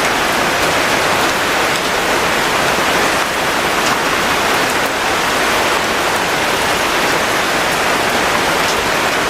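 Steady heavy rain, a dense even hiss of drops falling on a surface, with faint scattered individual drop ticks.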